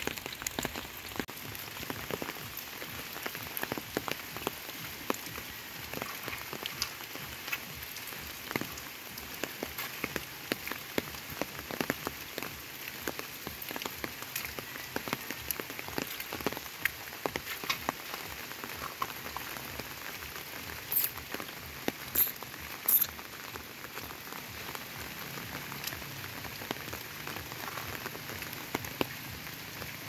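Steady rain falling on the surrounding leaves and wet ground, with many close drops tapping individually. Roughly two-thirds of the way through, three brief, very high-pitched sounds stand out above the rain.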